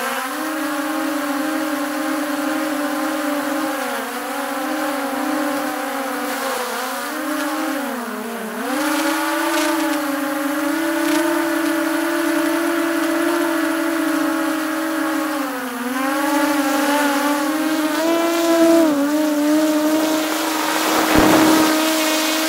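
DJI Mini 3 Pro drone's propellers buzzing steadily, heard from a camera mounted on top of the drone. The pitch dips and recovers briefly about 8 s and 16 s in as the drone changes throttle. A brief rushing noise comes near the end.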